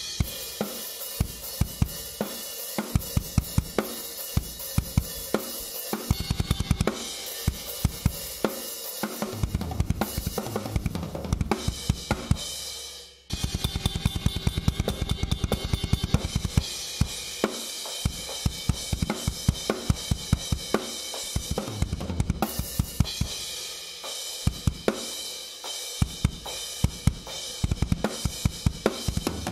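Acoustic drum kit played with sticks in a steady beat: snare and bass drum hits under crash cymbals and hi-hat. The playing breaks off for a moment just before halfway and starts again.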